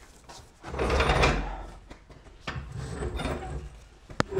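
Metal tools or equipment being handled, with two scraping, rattling bursts and a single sharp click near the end.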